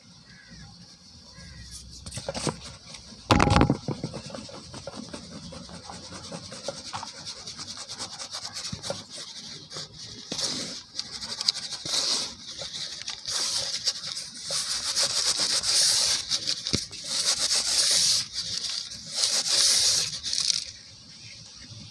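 Dry cement powder rubbed and sifted by hand in a plastic bowl, with one sharp thump about three and a half seconds in. From about ten seconds in, the powder pours out of the tipped bowl in several long, loud rushes of hiss.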